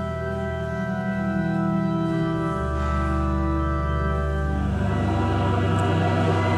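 Pipe organ playing sustained chords that change slowly. About two-thirds of the way in, a choir joins with singing.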